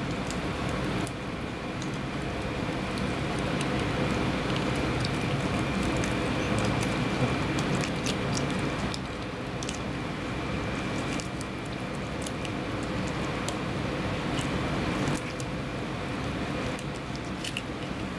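Kitchen knife filleting a small marbled rockfish on a cutting board: scattered small clicks and wet scrapes as the blade works along the bones, over a steady background hum.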